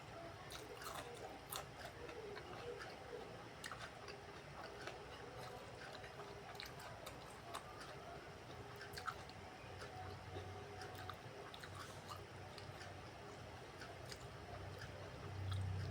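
Close-up chewing and mouth sounds of someone eating rice with vegetables in peanut sauce and battered fried tempeh, with scattered small clicks throughout.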